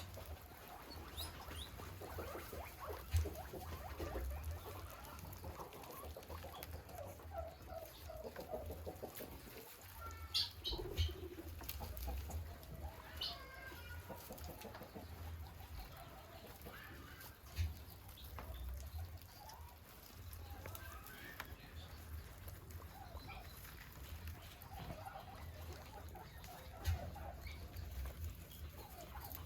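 Guinea pigs squeaking on and off and pattering about, with a few short knocks.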